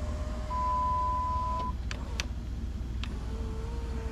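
1999 Jeep Grand Cherokee power window motor running the door glass, stopping with a click, then running again at a lower pitch near the end: the newly replaced window lift motor working. A steady electronic beep sounds over the motor for about a second.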